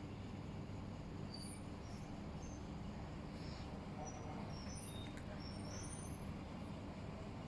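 Steady low rumble, with a few short, high bird chirps scattered through the middle.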